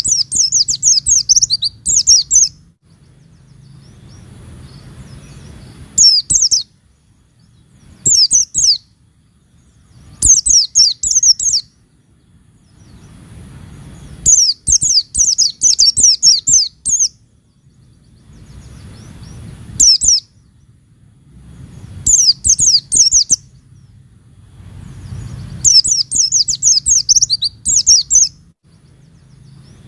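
White-eye (pleci) singing in repeated bouts of rapid, high-pitched twittering, each a second or two long, with short pauses between them.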